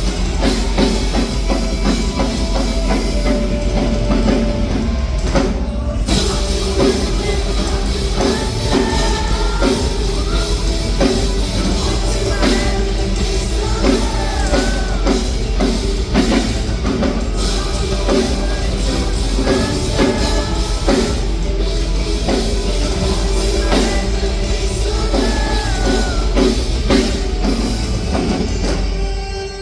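Live rock band playing loudly, with a singer over a drum kit and heavy guitars.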